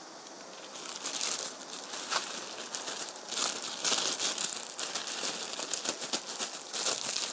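Thin disposable plastic glove crinkling and crackling as it is worked onto a hand, starting about a second in.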